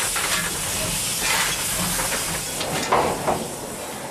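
Steam hissing steadily in a steam locomotive's cab as the train gets under way, with a couple of short knocks about three seconds in.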